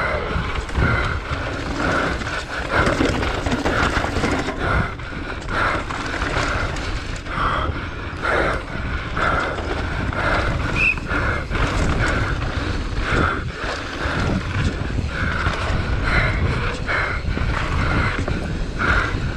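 Downhill mountain bike ridden hard down a dirt trail: tyres rolling and skidding over loose dirt and roots, with the bike rattling and knocking over the bumps and a steady rumble of wind on the bike-mounted camera's microphone.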